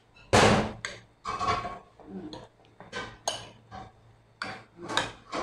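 Metal spoon stirring sweet potato strips through thick batter in a ceramic bowl, scraping and clinking against the bowl in irregular strokes, the loudest just after the start.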